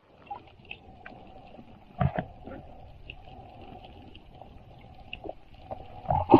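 Muffled underwater sound picked up by a camera held below the surface: a low, even hiss of water with scattered faint clicks and a dull knock about two seconds in.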